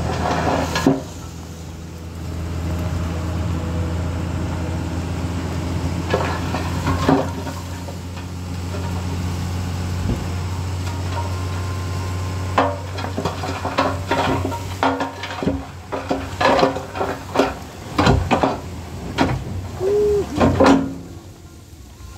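Tipper dump truck's diesel engine running steadily under hydraulic load as the bed rises. About halfway through, a run of irregular knocks and clatters sets in as the load of earth and stones slides and pours out of the tipped bed.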